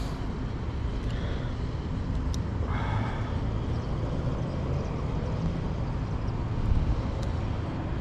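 Wind buffeting the microphone: a steady low rumble with no let-up.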